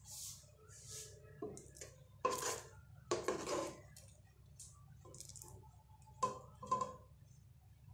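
Metal spoon scraping and clinking against an aluminium pot while stirring thick, boiled-down cola syrup. There are louder scrapes in the middle and two sharp clinks near the end.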